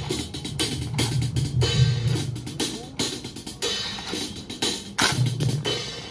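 Military drum corps playing a rhythmic marching beat: rapid drum strokes with a deep bass drum underneath.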